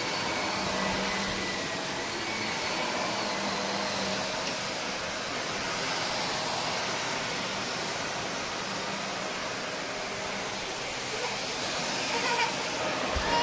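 Shark upright vacuum cleaner running on carpet: a steady rush of air with a constant motor tone as it is pushed back and forth.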